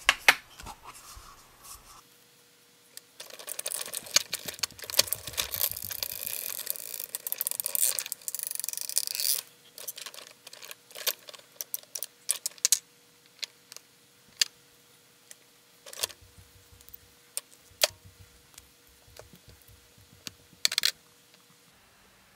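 Hands working a plastic Play-Doh toy set. From about three seconds in there are several seconds of continuous rustling and scraping. After that, scattered light clicks and taps of plastic parts being handled.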